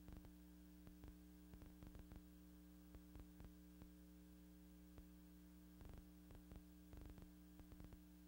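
Near silence: a faint steady hum with scattered light clicks and crackles, the noise floor of an old film soundtrack rather than any machine sound.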